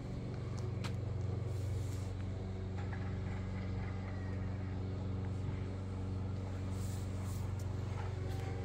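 A steady low mechanical hum, pitched and even throughout, with a few faint clicks.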